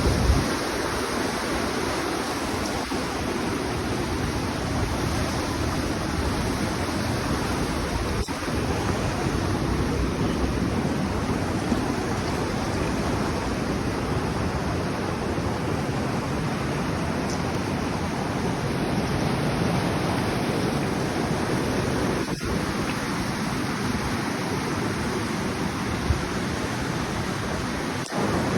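Steady, even rushing noise outdoors with no distinct events, dipping briefly three times.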